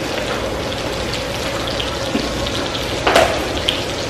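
Steady sizzling of food frying in a pan on the stove, with a single sharp knock about three seconds in.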